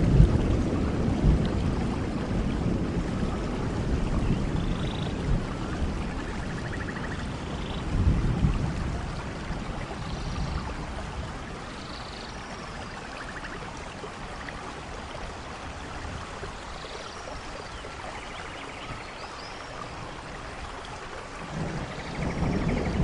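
Steady rain falling, with low rolls of thunder: one dying away at the start, a short one about a third of the way in, and another building near the end. Birds chirp and trill now and then over the rain.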